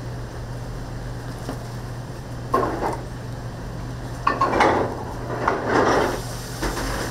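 Metal kitchen utensils clattering: one brief clatter about two and a half seconds in, then a longer run of clattering from about four to six seconds, over a steady low hum.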